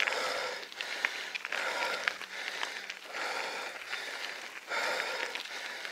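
A mountain biker panting heavily into the microphone, about one hard breath a second, out of breath from an all-out climb with his heart rate around 173. Small clicks scatter through the breaths.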